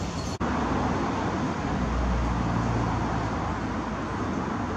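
Steady road-traffic rumble heard inside a pedestrian underpass. A deeper rumble swells about two seconds in and fades a second later, as of a heavier vehicle passing. The sound drops out briefly less than half a second in.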